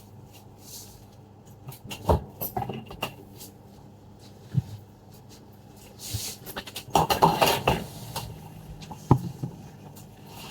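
Small tools being handled on a repair bench: sharp clicks and knocks of tools set down and picked up, with a denser clatter and scratching for a couple of seconds past the middle, over a faint steady hum.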